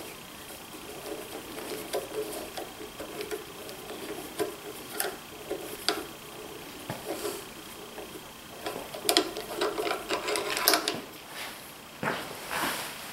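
Socket head screws in a DeWalt 735 planer's gearbox being turned out with a long hex driver: rapid, uneven ticking and light metal scraping, with a cluster of sharper clicks near the end.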